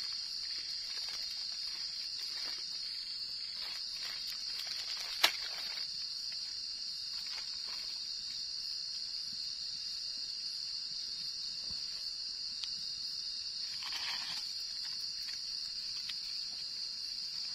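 Steady high-pitched drone of night insects, with a wood cooking fire crackling softly and one sharp crack about five seconds in.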